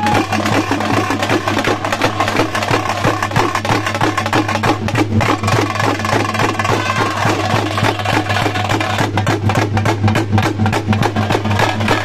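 Traditional folk drum troupe playing a fast, dense rhythm: tamate frame drums struck with sticks, a barrel drum and a beaten metal plate, all together without a break.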